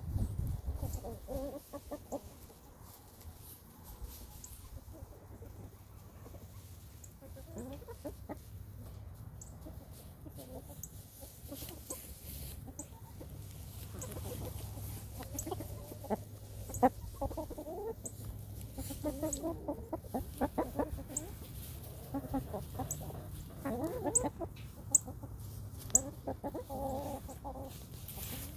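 Domestic hens clucking softly and intermittently as they forage, the clucks coming more often in the second half, with short sharp clicks as they peck and scratch in straw.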